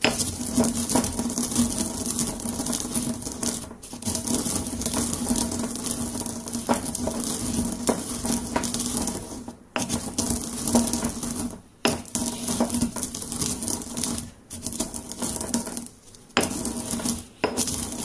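Stone pestle crushing and grinding roasted coffee beans in a stone mortar: a continuous gritty crunching and scraping, broken by a few brief pauses.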